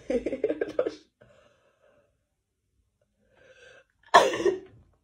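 A person sneezing from a nasal swab: a sharp sneeze at the start runs straight into about a second of short, rapid coughing bursts. After a faint breath in, a second sharp sneeze comes about four seconds in and fades quickly.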